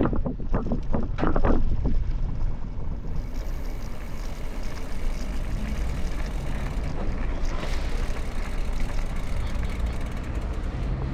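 Steady rush of wind on the microphone of a moving bicycle, with a quick run of short sounds in the first two seconds.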